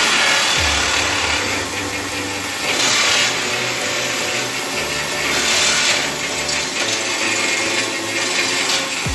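Hydraulic rock drill of a Resemin Raptor 55 2R long-hole drilling rig drilling with a 64 mm bit: a steady, loud grinding hammer that swells about every three seconds.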